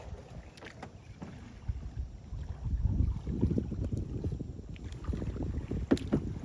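Wind buffeting the microphone in gusts, a low rumble that swells and fades, with a few sharp knocks near the end.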